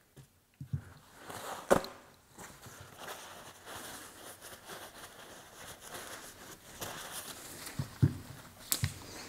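Shop paper towel rubbing and rustling as old grease is wiped off brake hardware, with a sharp click about two seconds in and a couple of light knocks near the end.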